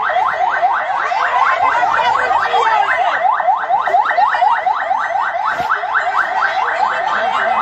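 Electronic siren in a fast yelp, about five rising sweeps a second, going on without a break.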